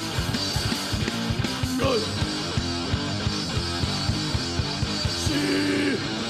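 Hardcore punk band playing an instrumental passage: electric guitar chords over fast, driving drums, with a sliding pitch about two seconds in and longer held chords near the end.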